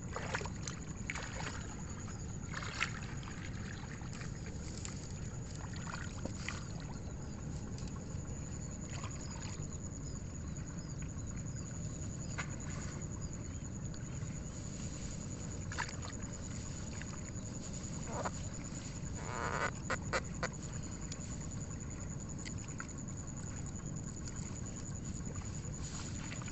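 Wet mud and water squelching and splashing in short scattered bursts as clumps of rice seedlings are pulled up by hand from a flooded seedbed, with a cluster of louder splashes a little past the middle. Under it a steady low rumble and a faint steady high whine.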